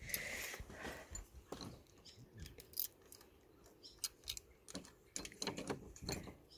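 Light clicks and scrapes of a key being worked in a padlock on a door hasp, with a brief rustle at the start.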